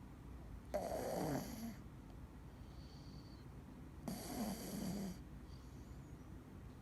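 Scottish Fold cat snoring in its sleep: two snores about three seconds apart, each lasting about a second and sliding down in pitch.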